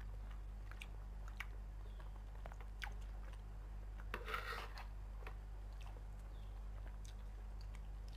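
Close-up chewing of a mouthful of rice and fried tempeh, with scattered light clicks of a metal spoon and fork against a ceramic plate and a short noisy scrape or slurp about halfway through. A steady low hum runs underneath.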